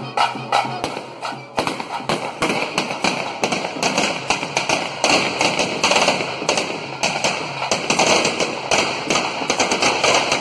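A string of firecrackers going off in rapid, irregular bangs, starting about a second and a half in.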